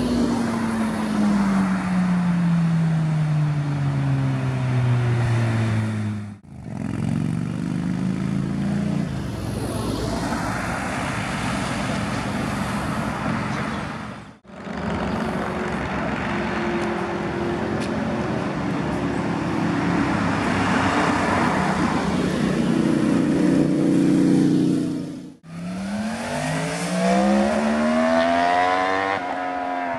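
Motorcycle engines passing one after another on a mountain road, each engine note falling in pitch as the bike goes by and pulls away. The sound breaks off abruptly three times between passes.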